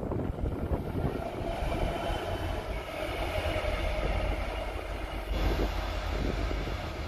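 Diesel locomotive running along the far line through the station, a steady low engine drone.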